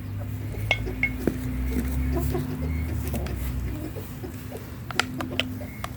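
Backyard chickens clucking while they feed, with short sharp clicks scattered through and a low rumble over the first few seconds.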